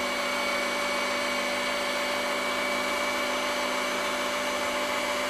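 Electric meat grinder (Fleischwolf) running steadily with a constant motor hum and whine as it pushes ground pork sausage meat through the stuffing tube into casing.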